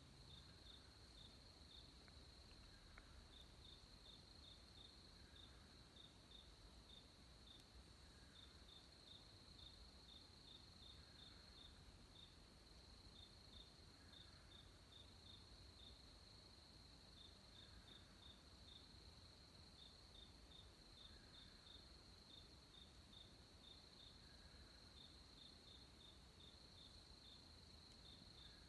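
Faint night chorus of crickets: a steady high trill with short chirps in quick little groups. A softer, lower call repeats every two to three seconds over a faint low hum.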